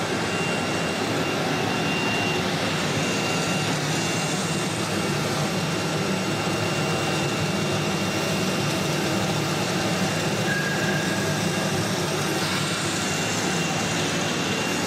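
Steady machine noise from CNC router workshop equipment, running without a break, with a faint high steady whine over it and a short beep-like tone about ten seconds in.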